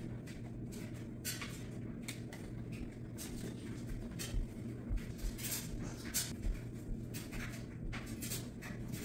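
Household handling noises: a baby swing's frame being lifted and carried, then a rug being picked up off the floor, as scattered rustles with a cluster of soft knocks and thuds in the middle. A steady low hum sits underneath.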